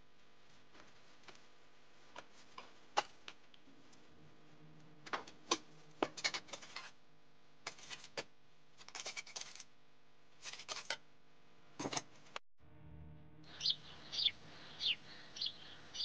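Scattered light clicks and taps over a faint steady hum; near the end, a bird chirping several times in quick falling notes.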